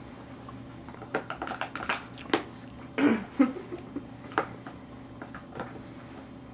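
Light clicks and taps of a plastic feeding bowl, spoon and high-chair tray being handled and grabbed at while a baby is fed. A brief baby vocalization comes about three seconds in.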